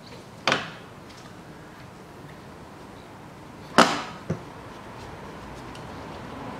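Two sharp clicks about three seconds apart, the second the loudest and followed half a second later by a softer knock: the plastic windshield cowl panel being pressed and snapped into place by hand.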